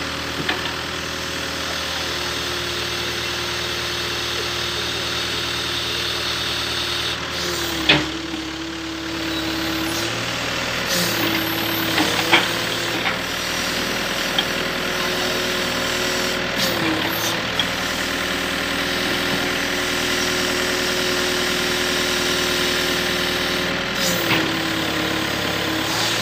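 Sumitomo hydraulic excavator's diesel engine running steadily while its bucket pushes a wooden pile into the ground. The engine note dips briefly about four times as the hydraulics take load. A few sharp knocks come through, the loudest about eight seconds in and another about twelve seconds in.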